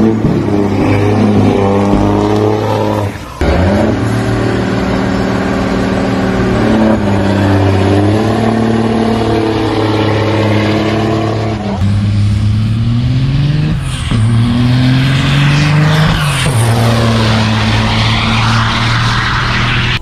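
Semi-truck diesel engines at full throttle on a drag strip. The pitch climbs through each gear and drops at each shift, across three clips that cut abruptly about three and twelve seconds in.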